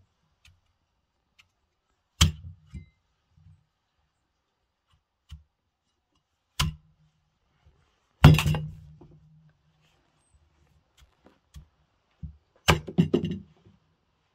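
Cleaver chopping through a raw pumpkin into a thick wooden log chopping board: single sharp chops a few seconds apart, the loudest about eight seconds in, then a quick run of several cuts near the end.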